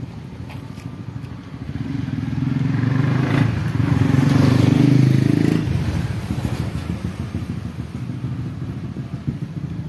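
A motor vehicle's engine passing by: it grows louder over a few seconds, peaks about halfway through and fades off about six seconds in, over a steady background rumble.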